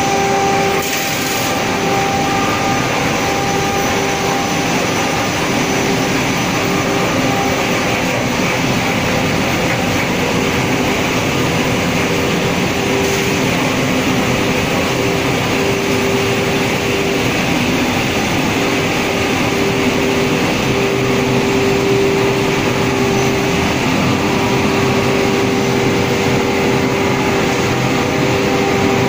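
Waste textile recycling line running: a dense, steady machinery noise with a constant pitched hum and no change in pace.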